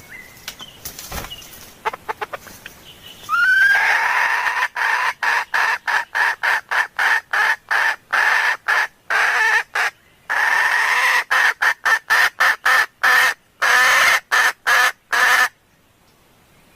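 Red junglefowl hen calling to males: a rapid run of clucking notes, about three or four a second, that starts about three seconds in with a short rising note and stops shortly before the end.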